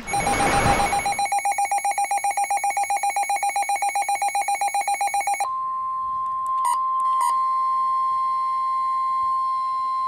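Midland HH54VP NOAA weather radio alerting for a severe thunderstorm warning. After a brief noisy rush, a rapidly pulsing alarm beep sounds for about five seconds. It gives way to a steady, single-pitch warning alarm tone of about 1 kHz, with two small clicks partway through.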